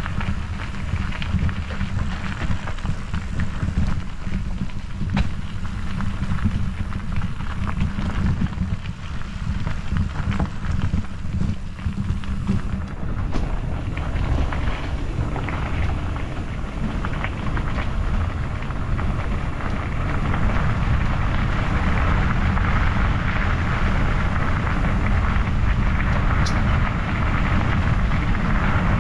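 Wind buffeting the microphone of a camera on a moving bicycle, a steady low rumble mixed with the hiss of tyres rolling on the trail. The hiss grows louder and steadier about two-thirds of the way through.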